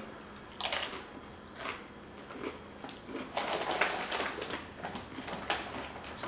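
Crisp salsa verde tortilla chips topped with hot crab dip being bitten and chewed close to the microphone: irregular sharp crunches, with a quick run of crunches in the middle.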